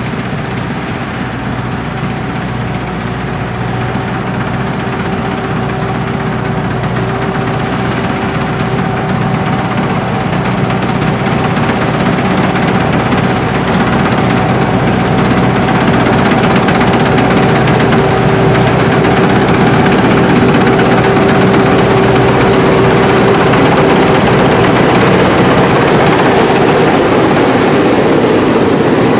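Sakpattana SS-300 Black Bird combine harvester running steadily on its five-cylinder 170 hp engine, with a steady whine over the machinery noise, growing gradually louder.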